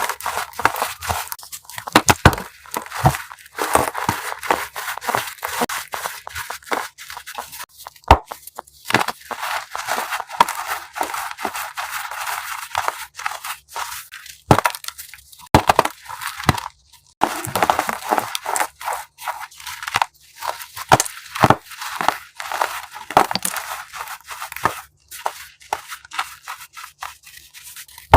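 Blocks of chalk being crushed by hand close to the microphone: dense, crunchy crumbling broken by many sharp cracks, with a few brief pauses between crushes.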